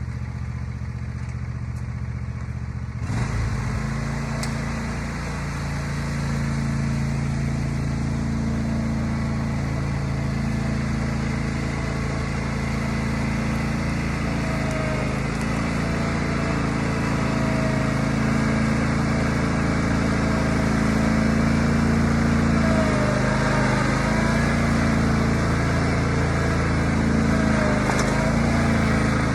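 Riding lawn mower's small engine running steadily, with a sudden rise in noise about three seconds in and brief dips in engine pitch a few times in the second half.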